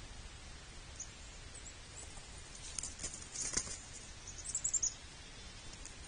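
Steady faint outdoor hiss. About halfway through comes a brief burst of scratchy rustling with one dull thump, then a quick run of short high chirps near the end.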